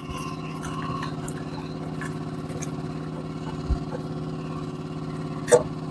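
A small engine running steadily, with one sharp knock near the end.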